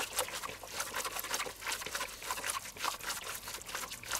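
Gloved hands kneading a wet raw minced-meat mixture in a bowl: a run of small, irregular, wet squelches and smacks.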